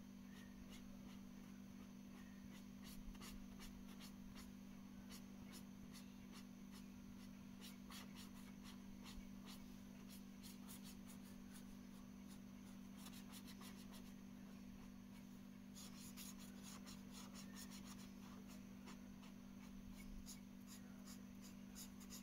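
A felt-tip marker scratching faintly across paper in many quick back-and-forth colouring strokes, over a steady low hum.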